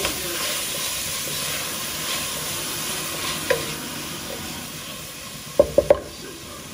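Chopped carrot and capsicum sizzling in oil in a pot while being stirred, with a steady hiss that slowly dies down. Three quick knocks come close together near the end.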